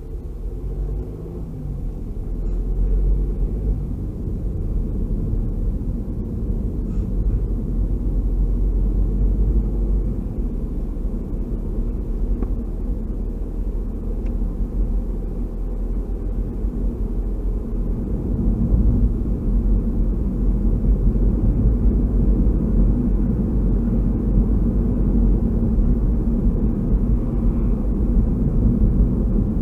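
Car driving, heard from inside the cabin: a steady low rumble of engine and road noise. The engine pitch rises and falls a few times in the first seconds, and the rumble grows louder a little past halfway.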